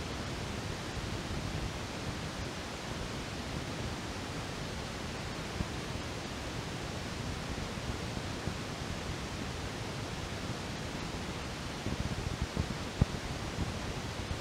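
Steady hiss of background noise, with a few faint clicks and taps, most of them near the end.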